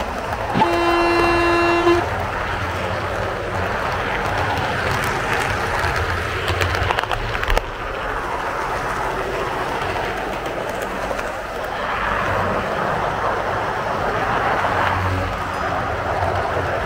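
One train horn blast of about a second and a half near the start, then the steady rumble and rattle of train coaches rolling along the rails, with some clattering about halfway through.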